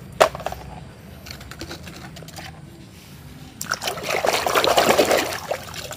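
A hand swishing and splashing through muddy water, getting louder about three and a half seconds in. There is a light knock just after the start.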